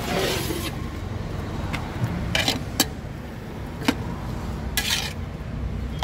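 A serving spoon scrapes and clinks against a large pot of biryani a handful of times as rice is dished out, after a crinkle of a foil paper plate at the start. Under it runs a steady low engine hum of nearby traffic.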